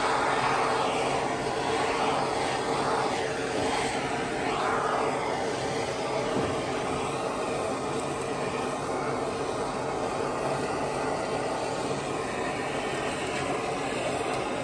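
Handheld gas torch burning with a steady rushing roar as its flame sears a beef roast in a cast-iron skillet. During the first few seconds the hiss sweeps up and down as the flame is moved over the meat.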